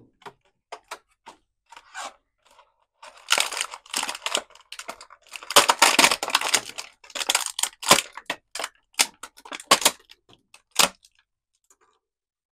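Toy packaging being opened by hand: irregular bursts of tearing and crinkling with scattered clicks, loudest around the middle.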